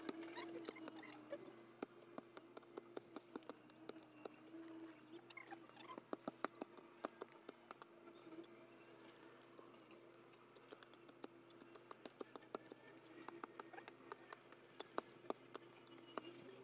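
Irregular small knocks and scrapes of a hand tool chipping and digging into packed earth, coming in clusters, over a faint steady hum.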